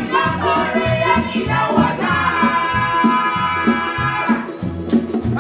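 Several voices singing together to a strummed acoustic guitar and a steady rattling percussion beat, with one long held note from about two seconds in until just after four seconds.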